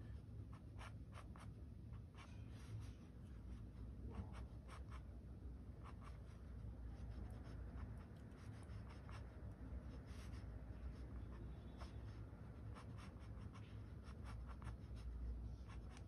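Mechanical pencil sketching on paper: a run of faint, short, scratchy strokes, drawn in quick irregular succession.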